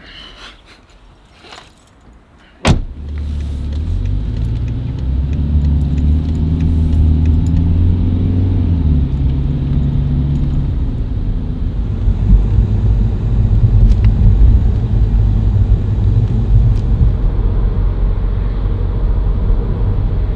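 A sharp thump about three seconds in, such as a car door shutting, then a car's engine and road noise from inside the cabin. The engine note rises as the car accelerates and then settles into a steady driving rumble.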